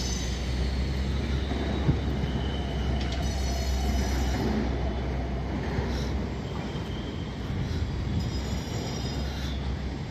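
Steady outdoor traffic noise with a low vehicle rumble that eases about six seconds in.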